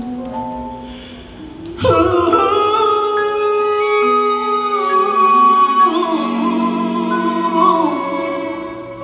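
Live ballad concert music: held chords with a long, slowly gliding melody line, possibly sung. It softens about a second in, then swells back loud just under two seconds in and carries on.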